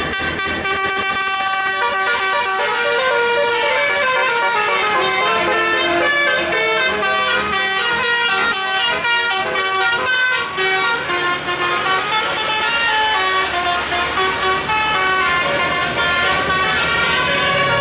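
A bus's Basuri telolet horn, a multi-tone musical air horn, playing a quick melody of short stepping notes without a break.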